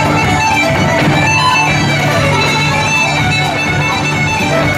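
Live fiddle music with guitar accompaniment over a steady low drone.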